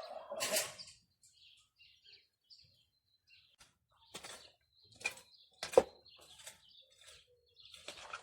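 Several sharp knocks or clatters, the loudest about six seconds in, with faint bird chirps in between.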